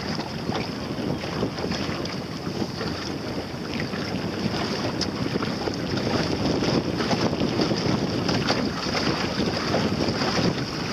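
Wind buffeting the microphone over the rush of water along the hull of a small boat under way, a steady noisy rush with no clear engine note.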